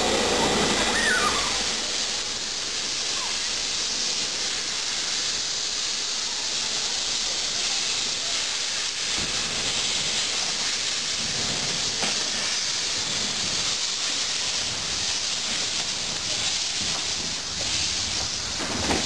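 Steam locomotive rolling slowly past with steam escaping at the cylinders: a steady hiss with no clear puffing beat.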